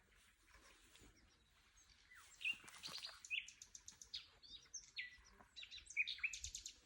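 Several wild birds singing, faint, in a mix of short chirps and quick high trills, with louder phrases about three seconds in and near the end.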